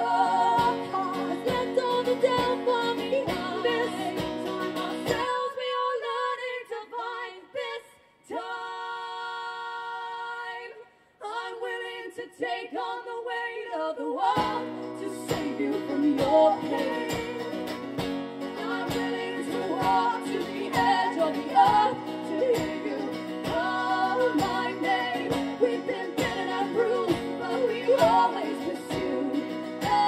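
Live folk-pop band music: singing over strummed guitars and a steady beat. About five seconds in it thins out to a held chord with short near-gaps, and the full band comes back in about halfway.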